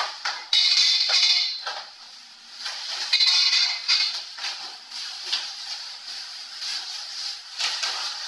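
Unpacking of dining-table parts: irregular knocks and clinks of parts and packaging being handled, with two screechy scrapes about a second long, one near the start and one about three seconds in.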